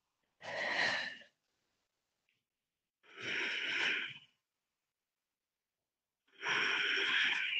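A woman breathing deeply and audibly through a held yoga side-bend stretch: three long breaths, each about a second, roughly three seconds apart.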